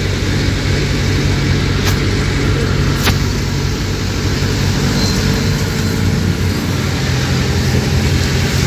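Passenger jeepney engine and road noise heard from inside the open-sided cabin: a steady low engine drone under a rush of wind and road noise, with two sharp clicks about two and three seconds in.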